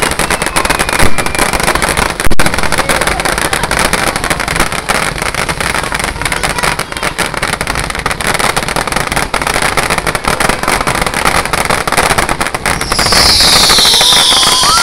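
Fireworks display: a dense, continuous crackling of many small pops. Two louder bangs come in the first few seconds, and near the end a louder high hiss joins in.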